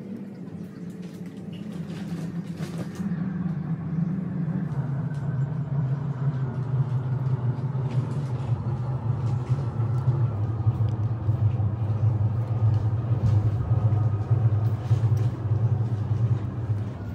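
A steady low mechanical rumble, like a motor running nearby. It grows louder over the first few seconds and drops in pitch about four seconds in, with faint clicks over it.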